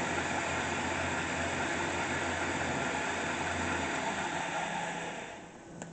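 20-inch Clausing floor-type variable-speed drill press running in reverse: a steady motor-and-drive whir with a low hum. The hum drops out about four seconds in, and the machine winds down near the end.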